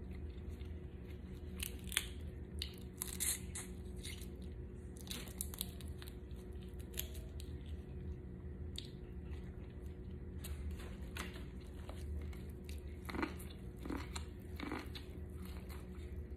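Boiled crawfish being cracked and peeled by gloved hands: an uneven scatter of sharp shell cracks and snaps, mixed with close-up chewing and mouth sounds.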